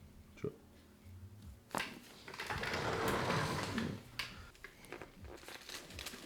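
Rustling and shifting of a body on a chiropractic treatment table, with a few sharp clicks.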